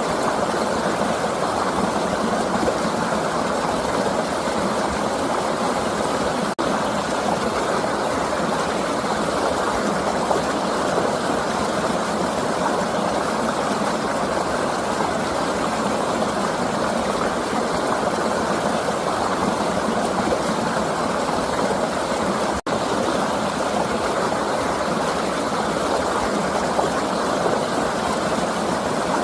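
Flowing river water rushing steadily, an even wash of sound with no let-up, cut for an instant twice.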